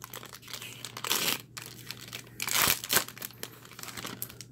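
Foil wrapper of a Pokémon card booster pack being torn open and crinkled by hand, in several short bursts, the loudest about two and a half seconds in.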